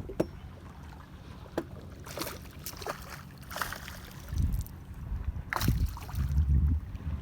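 Gusts of wind on the microphone over a steady low hum, with a few scattered sharp clicks and knocks. The louder gusts come about four and a half seconds in and again near the end.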